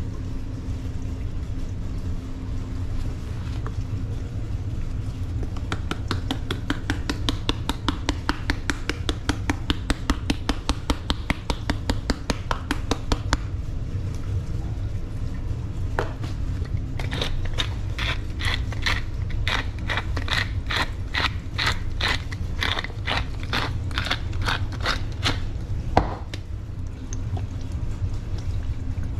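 A seasoning shaker shaken in quick, even strokes in two long bouts, the second one brighter. A single knock comes near the end, over a steady low hum.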